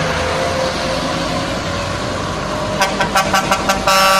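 Heavy trucks' diesel engines running under load on a climb, the engine note slowly rising, then a quick string of short truck air-horn toots about three seconds in and a long air-horn blast near the end.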